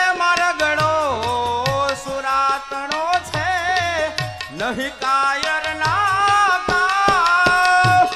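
A man singing a long, wavering melody in Indian folk style, accompanied by a hand drum such as a tabla.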